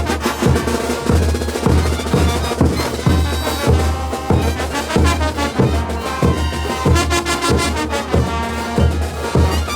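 Bolivian brass band playing a morenada: brass melody over a steady, heavy drumbeat.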